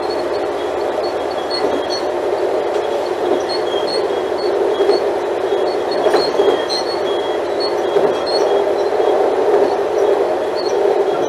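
Diesel engine of an Alstom Coradia LINT 41 diesel multiple unit running, a steady dense drone, with faint high ticks repeating at a regular pace above it.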